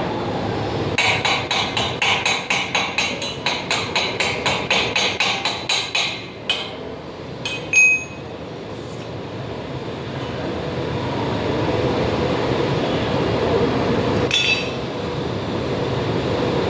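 A hammer striking metal in a rapid, even run of about four blows a second, then a few single ringing strikes, the loudest about eight seconds in. A steady rumbling noise runs underneath and grows louder in the second half.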